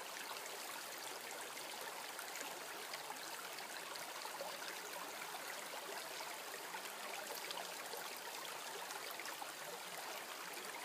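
Small rocky creek flowing: a steady babble of shallow running water over stones, with faint scattered ticks in it.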